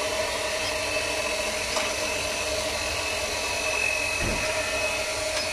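A steady machine whir with hiss and a faint high tone, level throughout.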